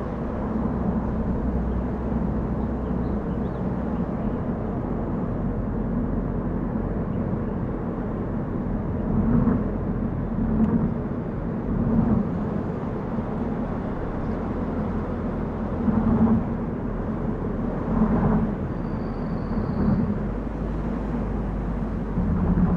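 A car driving on a road: a steady low rumble of road and engine noise, with brief swells in loudness about every two seconds in the second half.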